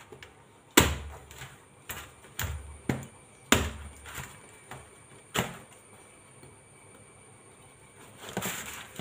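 A knife chopping through a small jackfruit on a woven bamboo mat: about five sharp knocks in the first five and a half seconds, then a quiet stretch and some rustling near the end.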